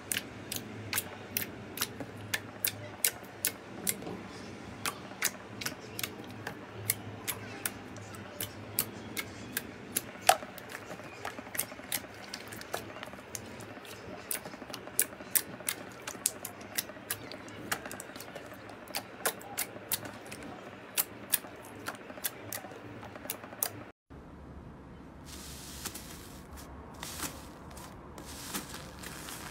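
Glossy slime squeezed and poked by hand, giving sharp wet clicks and pops about twice a second as air pockets in it burst. Near the end, after a sudden short gap, a foam-bead slime (floam) is pressed by hand with a crackling, crunchy sound.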